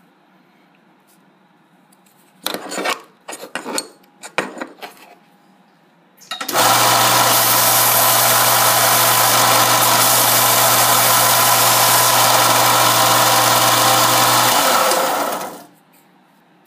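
A few knocks and clatters of handling, then a small belt sander switched on and running steadily for about nine seconds while it rounds a corner of thin aluminum plate against a steel radius guide. It is then switched off and winds down.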